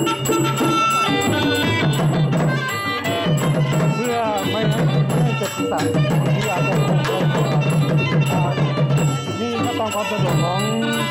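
Southern Thai Nora ensemble playing dance music: a fast, driving pattern on the thap goblet drums and barrel drum, with a wavering, gliding pi oboe melody over it.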